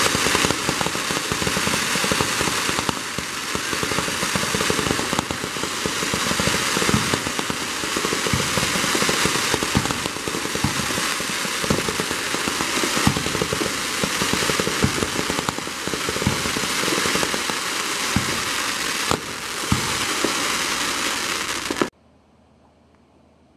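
A fireworks barrage going off in quick succession: a dense, continuous crackle with frequent sharp bangs. It cuts off suddenly near the end, leaving faint hiss.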